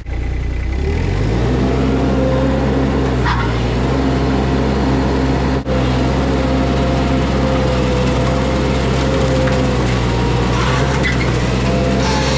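Mini skid steer engine revving up about a second in, then running steadily at high throttle, with a few brief clatters.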